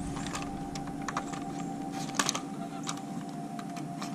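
Light clicks and taps of a plastic pool vacuum head's handle bracket being fitted onto the end of an aluminium telescoping pool pole, the sharpest pair a little after two seconds in, over a steady hum.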